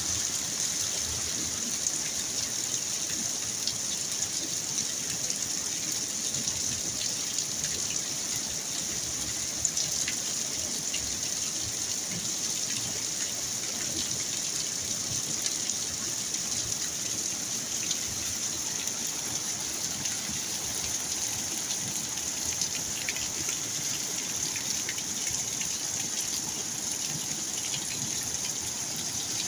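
Heavy rain falling steadily, a constant hiss with many small drop ticks scattered through it.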